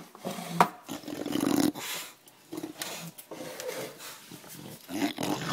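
Bulldog vocalizing in several short, low, rough bouts: the crying of a dog upset over her squeaky toy.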